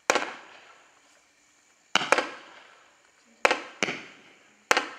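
A 19-shot brocade crown horsetail fireworks cake firing: sharp bangs every second or so, some in quick pairs, each trailing off over about half a second.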